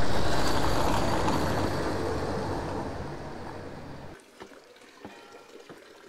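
A car driving past on the street, loud at first and fading steadily as it moves away, then cut off after about four seconds.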